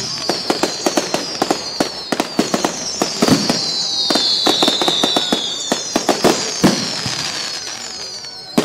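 Fireworks display: a rapid run of sharp cracks and bangs, with several whistling rockets overlapping, each whistle falling in pitch.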